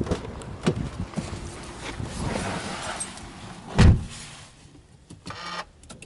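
Getting into the driver's seat of a Subaru Legacy B4 2.0GT spec.B: rustling and a few knocks, then the driver's door shutting with a heavy thump about four seconds in. Near the end come a few clicks and a short rattle as the key is turned to the on position.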